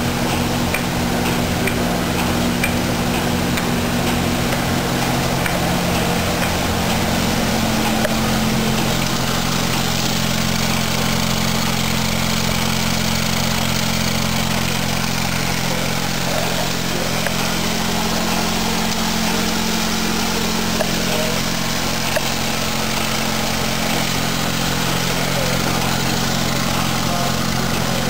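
Dorn 19-inch UV coater and its sheet feeder running: a steady mechanical hum, with a few low steady tones over an even wash of motor and blower noise.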